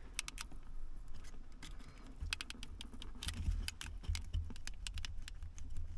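Light, irregular clicks and ticks of a thin metal pick and hard plastic as it works the locking tab of a wiring connector on an electronic parking brake button assembly to free the connector.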